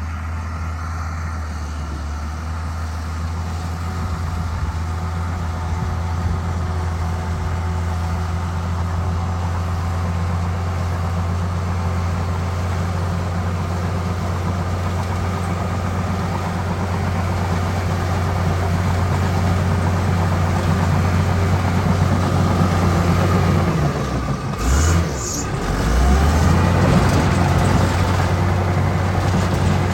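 Diesel engine of heavy earthmoving machinery, such as a bulldozer, running steadily under work. About 25 seconds in the engine note dips and breaks briefly, then picks up again slightly louder.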